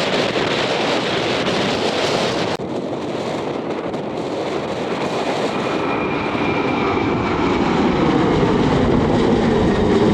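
Aircraft engine noise building as an aircraft approaches, a whine coming in about halfway and a deeper rumble growing louder toward the end. Wind buffets the microphone in the first couple of seconds.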